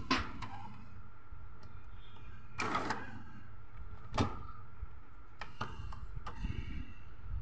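Epson L380 inkjet printer running its Power Ink Flushing cycle, drawing ink through the print head. Its mechanism whirs in short bursts, with a sharp click about four seconds in, over a steady low hum.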